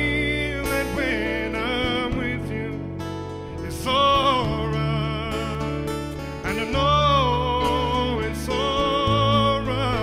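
A male lead singer singing long held notes with vibrato over live band accompaniment, with the sung notes swelling loudest about four seconds in and again about seven seconds in.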